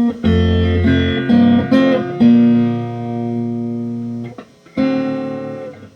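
Amplified electric guitar played: a quick run of notes and chords in the first two seconds, one left to ring for about two seconds, then a last chord near the end that dies away.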